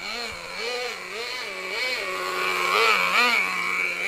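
Nitro RC truck's VRX .18 glow engine running through a break-in tank. It revs up and back down in quick repeated blips, settles to a steady speed for a moment, then blips several times again.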